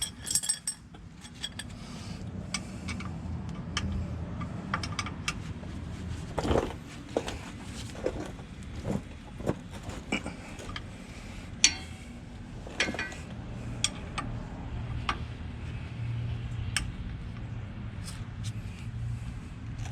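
Hand tools clinking and clicking on steel while 12 mm U-joint strap bolts on a driveshaft are worked loose: scattered sharp metal clicks and knocks, the sharpest a little before the middle. A low steady hum runs underneath.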